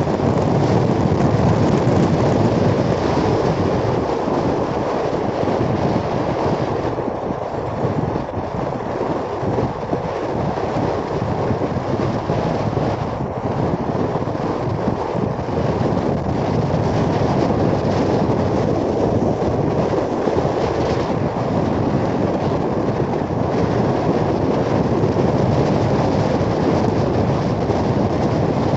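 Steady wind buffeting on the microphone of a fast-moving vehicle, mixed with a continuous low running rumble.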